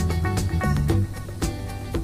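Background music with a steady beat of about two hits a second over a bass line and short plucked notes.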